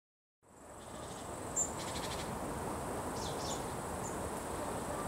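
Insects chirping, cricket-like, in short high trills every second or so over a steady outdoor hiss, fading in from silence in the first half second.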